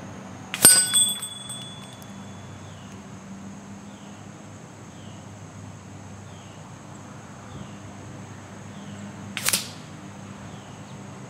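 An air-rifle pellet strikes a steel target, and the small door-chime bell mounted on it rings with a bright chime that fades over a second or two. Near the end a second pellet makes a sharp crack with no ring, a shot that does not set the bell ringing.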